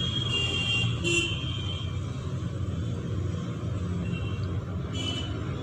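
Road traffic rumbling steadily, with several short, high horn toots.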